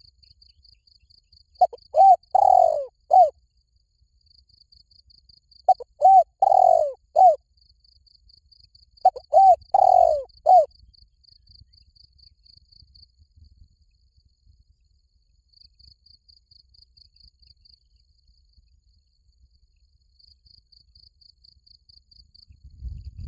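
Spotted dove cooing three times about four seconds apart. Each phrase has four notes: two short, one longer falling note, and a short last one. A fast pulsing cricket trill runs underneath, in stretches.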